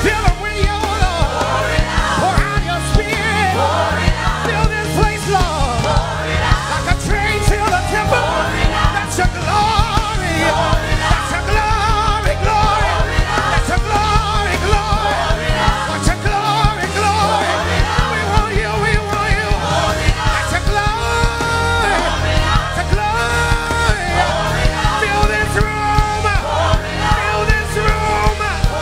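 Live church worship band music with singing, over a steady bass and drum beat.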